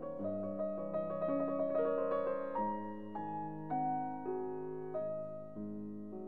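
Background piano music: a gentle melody of struck notes and chords, each fading slowly before the next.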